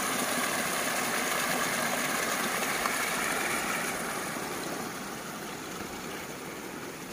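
Steady rush of running water, fading over the last few seconds.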